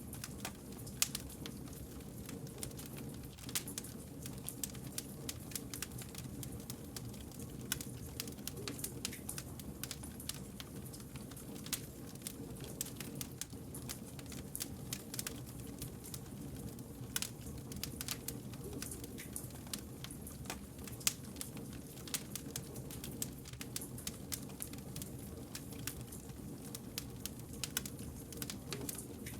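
Wood fire crackling, with frequent irregular sharp pops and snaps over a low steady rumble of burning logs.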